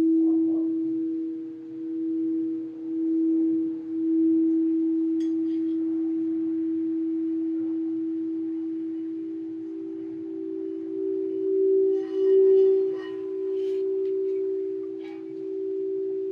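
Crystal singing bowls ringing a sustained low tone that swells and wavers slowly. The pitch shifts up slightly about halfway as another bowl takes over. About three-quarters in, a brief, brighter higher ringing joins.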